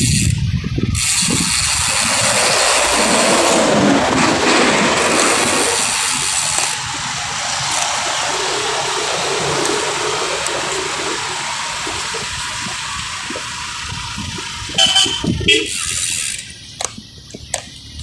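Wind rushing over a handlebar-mounted phone's microphone while cycling in street traffic. It is strongest over the first several seconds and then eases. Near the end come a couple of short louder bursts and a few sharp clicks.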